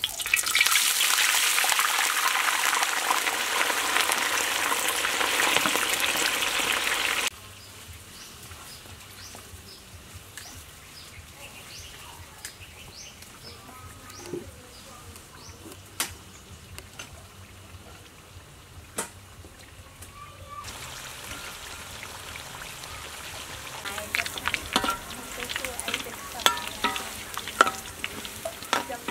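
Breadfruit slices deep-frying in a wok of hot oil. The sizzling is loud for the first seven seconds, then a quieter stretch follows with scattered clicks. Near the end the sizzling returns, with clinks and scrapes as a wire skimmer stirs the slices.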